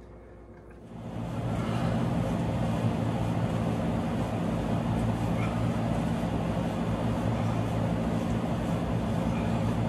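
A machine or engine running steadily: a low, even drone with a noisy hiss over it, starting about a second in as the scene changes and holding level throughout.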